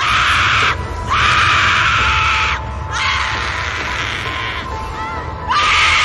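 Horror sound-effect screaming: about four long human screams in a row, each starting with a sharp upward rise in pitch, over a steady low rumble.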